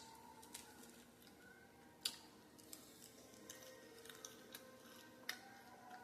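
Faint eating sounds of beer-battered crispy fried crab: scattered sharp crunches and mouth clicks, the loudest about 2 s and 5 s in.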